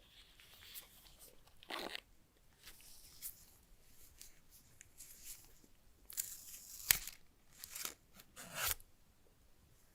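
Smartphone packaging being handled: crinkling and rustling of paper and plastic wrapping with small clicks. The loudest is a sharp click about seven seconds in.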